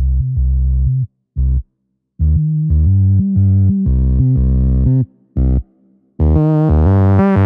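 Background music: a bass-heavy synthesizer riff of stabbed notes broken by short silences.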